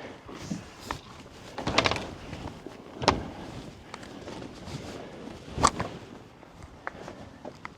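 A few separate sharp knocks and clatters, like tools or metal parts being handled. The loudest comes about three seconds in, with smaller clicks between.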